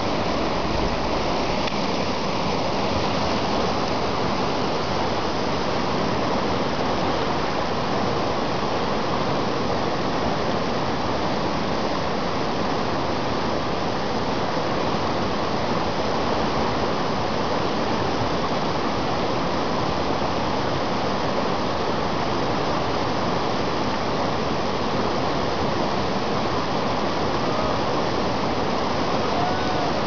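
Whitewater river rapids rushing steadily, an even unbroken noise of churning water.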